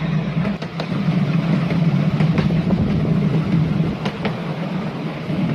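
Miniature railway train running along its track: a steady low engine drone with irregular sharp clicks, like wheels passing over rail joints.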